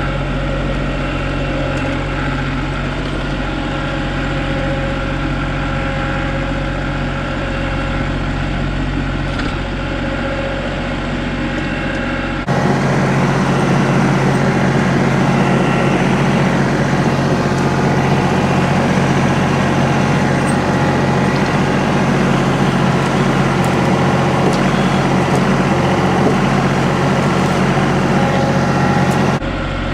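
An engine running steadily, with an abrupt cut about twelve seconds in to a louder, rougher engine sound that runs almost to the end.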